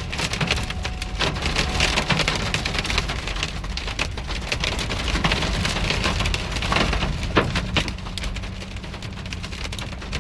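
Hail and heavy rain pelting a vehicle, heard from inside the cabin: a dense patter of sharp hits over a steady hiss, easing slightly near the end.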